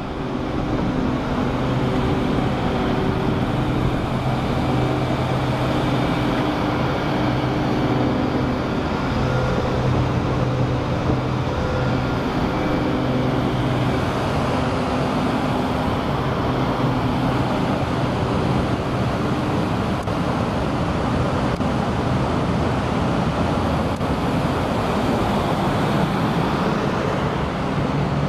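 Caterpillar diesel generator sets of 1250 kVA running steadily: a loud, even engine drone with a steady low hum.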